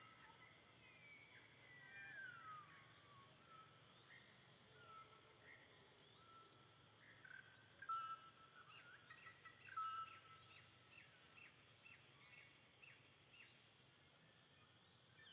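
Faint high-pitched animal calls: scattered short chirps and whistles, one long falling whistle about two seconds in, and a quick run of short chirps in the second half.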